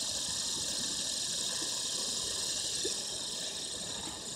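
Fidget spinner whirring freely on its steel ball bearing as it spins on the floor: a steady, hissy whir that eases slightly toward the end as it slows.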